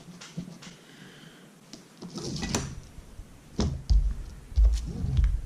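Handling knocks and bumps on a tabletop: small ticks at first, a sharp click about two and a half seconds in, then several heavy low thuds in the second half.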